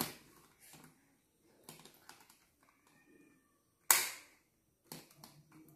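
A single sharp click at the wall power socket about four seconds in, the switch being pressed to power the LED strip light's adapter, after a few faint knocks of handling.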